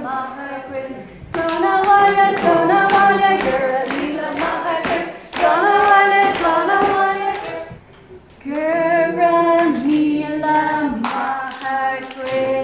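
A group of children and adults singing a song together, clapping in time with the beat. The singing breaks off briefly about eight seconds in, then starts again.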